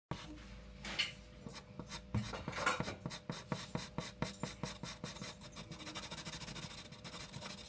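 Drawing on paper: a pen or pencil tip scratching across the sheet in many quick, irregular short strokes, as in shading or colouring in.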